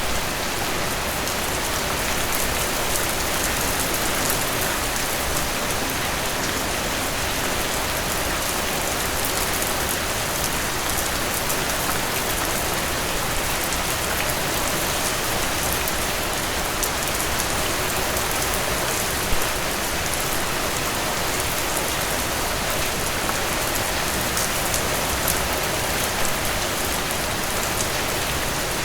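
Steady rain falling on a surface, an even hiss with the patter of individual drops and a few slightly louder drips.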